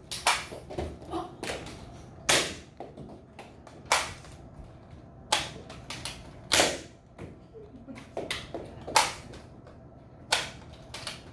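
Nerf Rival foam-ball blaster firing about eight sharp snaps, spaced unevenly a second or two apart, with smaller mechanical clicks between shots as the blaster is primed and reloaded.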